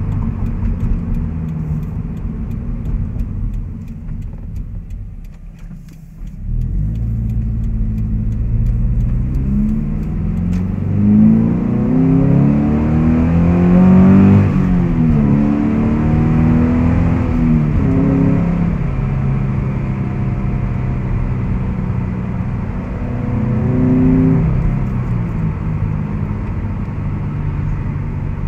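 2014 Subaru BRZ's flat-four boxer engine through a Corsa cat-back exhaust and Corsa intake, heard from inside the cabin. The engine note fades for a couple of seconds, then comes back abruptly about six seconds in. It climbs in pitch under acceleration, drops at a gear change about halfway through, rises again briefly, then settles into a steady drone.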